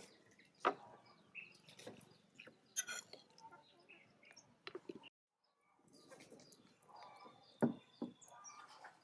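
Birds chirping and clucking, with a few sharp knocks, the loudest near the start and near the end. The sound drops out completely for about half a second a little past the middle.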